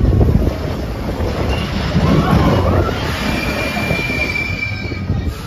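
Roller coaster train rumbling along its steel track, with a high, steady wheel squeal setting in a little past halfway and dropping out shortly before the end.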